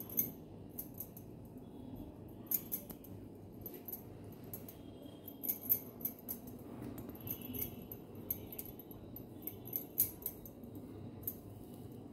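Light, scattered clicks and clinks over a low steady hum, from hands rolling dough into a roll.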